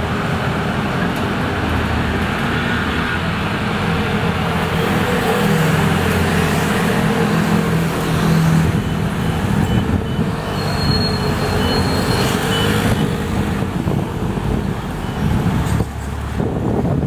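Busy street traffic, with motor scooters and cars passing as an electric city bus pulls away through the junction. A short run of high, evenly spaced beeps sounds around the middle.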